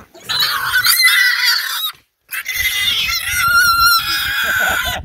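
A black piglet screaming as it is caught and picked up. It gives two long, shrill squeals with a short break about two seconds in. The pig is not used to being picked up.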